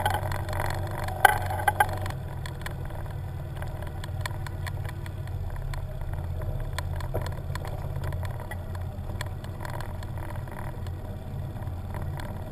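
Small fishing boat's motor running steadily with a low hum as the boat moves slowly along, with a few short knocks in the first two seconds.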